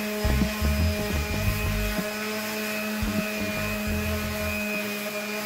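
Electric palm sander running steadily with a constant motor hum, its sanding pad rubbing over a plywood board.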